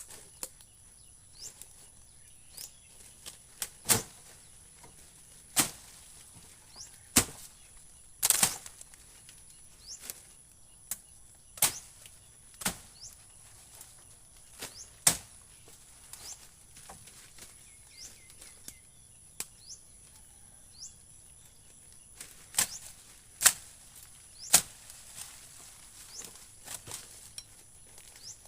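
A blade hacking at wooden branches: single sharp chops at irregular intervals, mostly a second or two apart, some much louder than others. A steady high insect drone and faint bird chirps run underneath.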